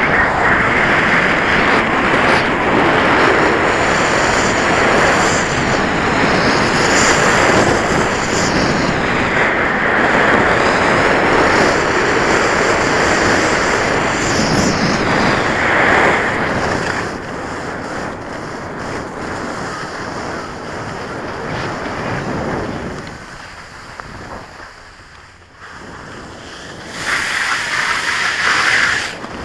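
Wind buffeting an action camera's microphone, with the hiss of skis sliding fast over packed snow during a downhill run. The rush is loudest for the first half, eases off and nearly drops out for a moment, then swells again near the end as the skier passes through a corrugated-metal tunnel.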